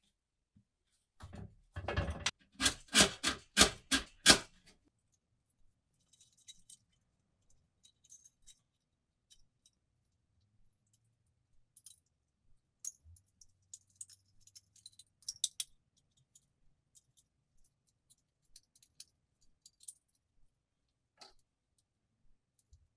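Small metal parts clinking and rattling: a quick run of about seven sharp knocks in the first few seconds, then scattered light clicks and taps.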